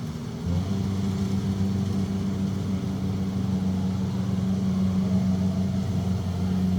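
Kubota DC-70 combine harvester's diesel engine running steadily under load, its drone stepping up in level about half a second in.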